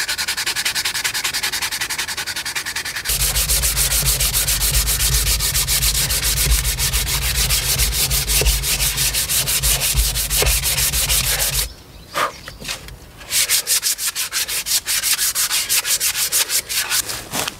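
Sandpaper rubbed briskly back and forth along a wooden axe handle in rapid scraping strokes. A deeper rumble runs under the strokes through the middle stretch, and there is a short pause about twelve seconds in. The wood is being roughed up to take off the factory oil finish and machine marks.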